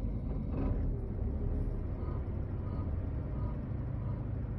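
Seat Ibiza 1.6 TDI four-cylinder diesel idling with the air conditioning switched on, a steady low rumble. From about two seconds in a faint light ticking repeats two or three times a second, the kind of abnormal background noise the owner suspects comes from the timing belt or the injectors.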